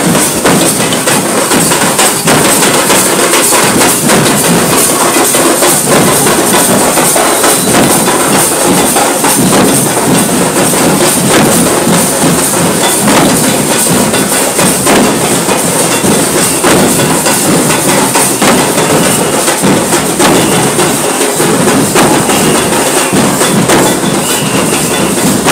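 Many large double-headed joydhak drums beaten with sticks together in a loud, fast, dense rhythm.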